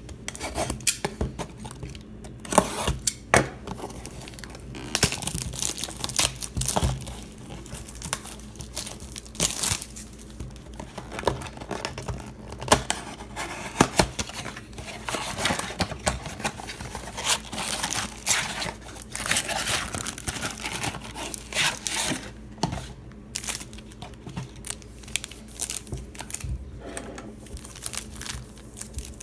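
Plastic wrapping on a box of trading cards being torn open and crinkled, in irregular bursts of tearing and rustling.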